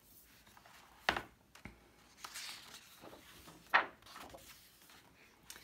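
Hardcover picture book being handled and opened on a wooden table: two sharp knocks of the cover, about a second in and again past the middle, the second louder, with a short rustle of paper between them.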